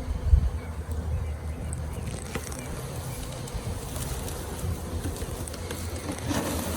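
Honey bee swarm buzzing steadily, with wind rumbling on the microphone.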